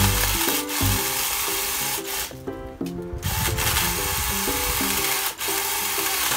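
Battery mini chainsaw on a pole cutting into a tree branch, a steady noise of chain on wood that drops out for about a second partway through and then resumes. Background music plays throughout.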